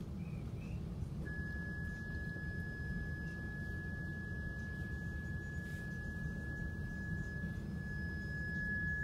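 A steady, high pure tone starts about a second in and holds unchanged to the end, over the low rumble of a vehicle's interior.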